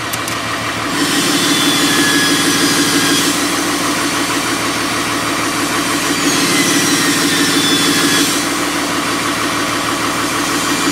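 Cummins diesel idling with its HE351VE variable-vane turbo in quick warm-up mode, vanes closed to build back pressure as an exhaust brake does. The vanes give a hiss over the idle with a few faint whistles falling slightly in pitch. This builds about a second in and dips briefly late on.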